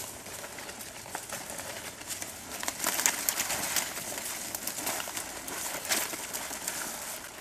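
Dry, bare branches and twigs scraping, rustling and cracking against clothing and backpacks as people force their way through dense scrub, with many small crackles and snaps.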